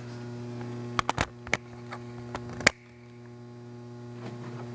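Steady electrical mains hum. Several short sharp clicks and knocks come about a second in, and a last, louder click comes near three seconds.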